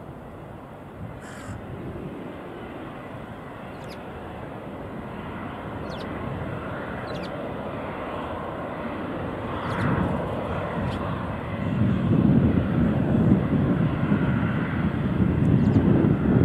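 Twin-engine Boeing 777 jetliner's turbofans at takeoff thrust as it climbs away, a jet rumble growing steadily louder, with the deep low roar building strongly in the last few seconds. A few short high chirps are heard above it.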